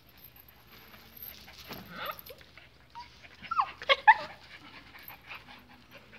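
Miniature pinscher whimpering and yelping: a couple of short whines about two seconds in, then a cluster of sharp yelps that slide up and down in pitch around four seconds in, the loudest part.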